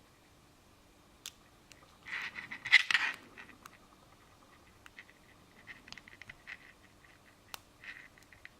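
Lock pick and tension wrench working the pins of a Master Lock Pro Series padlock: small metallic clicks and scrapes, with a louder cluster of rattling scrapes about two seconds in and scattered light ticks after.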